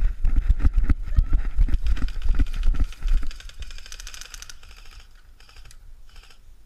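Quick running footfalls through heather and rough grass, heavy thuds about three or four a second, for the first three seconds. Then, quieter, several short bursts of rapid clicking airsoft gunfire.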